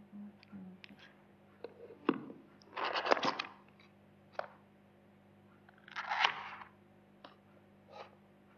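Handling of a smartphone's white cardboard retail box: scattered light clicks and taps of fingers and card, with two brief scraping rustles of card and paper, about three seconds in and again about six seconds in.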